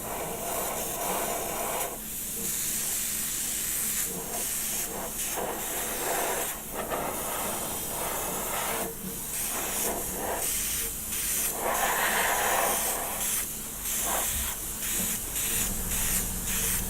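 Airbrush spraying thinned acrylic paint: a steady air-and-paint hiss in repeated bursts with many short breaks as the trigger is pressed and let go.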